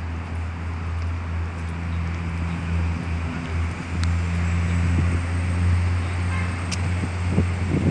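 An engine idling with a steady low hum, over a haze of outdoor traffic noise.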